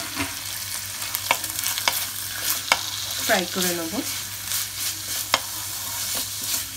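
Wooden spatula stirring and scraping grated carrot and chopped green beans frying in a little oil in a metal kadai: a steady light sizzle with scattered sharp clicks of the spatula against the pan.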